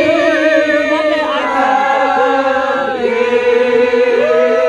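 A group of people singing together, holding long drawn-out notes with vibrato.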